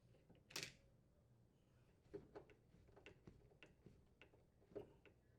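Faint, scattered clicks and ticks of a Phillips screwdriver unthreading small mounting screws, the loudest about half a second in.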